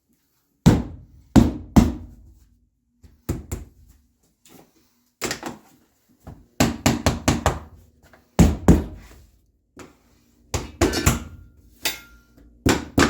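Rigid-core vinyl floor planks being banged into place: a series of hard knocks, some single and some in quick runs of several strikes.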